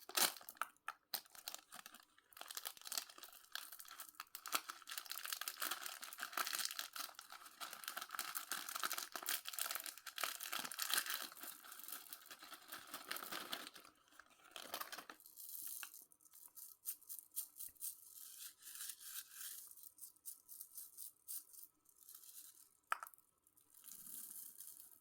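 Plastic candy wrappers being torn open and crinkled by hand, a dense run of crackling that thins out to scattered rustles about halfway through.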